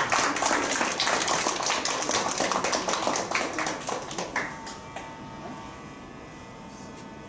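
Audience applause with some voices and cheers, dying away about four and a half seconds in, leaving a faint steady hum with a few held tones.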